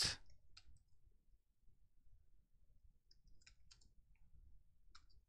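Faint, scattered keystrokes on a computer keyboard, a few clicks at a time in short clusters with pauses between.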